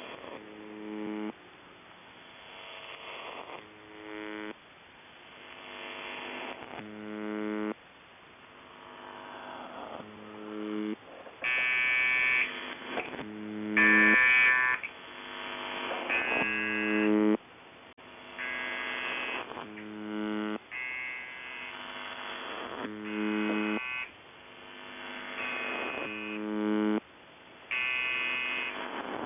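Electric buzzer going off again and again with a weird buzzing sound: about a dozen separate buzzes, each a second or two long and cutting off sharply, with a rising hiss between them.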